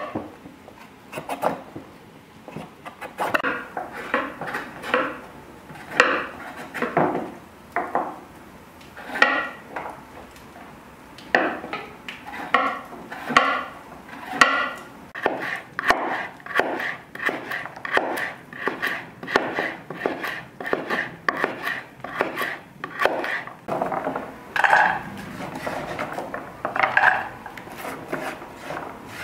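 Kitchen knife chopping carrots on a thick wooden cutting board: a steady run of sharp knocks, about one or two a second, several with a short ring from the blade.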